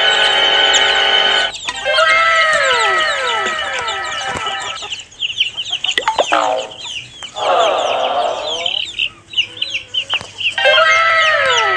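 Chickens clucking and chicks peeping, with many rapid high peeps and repeated falling calls.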